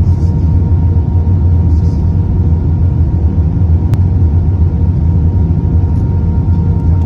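Steady low rumble of an Airbus A320 airliner on its landing approach, with a constant hum tone over it and a single click about four seconds in.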